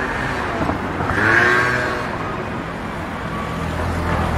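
City street traffic: a motor vehicle running close by over a steady background of road noise, loudest about a second and a half in.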